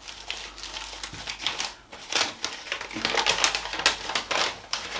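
Paper rustling and crinkling in short, irregular bursts as a folded invoice is handled and opened out.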